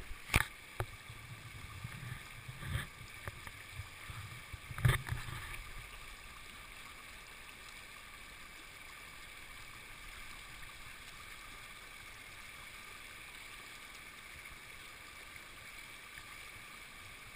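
Faint, steady rush of a shallow river, with a few low thumps and sloshes of water in the first five or six seconds as a wader moves in the current.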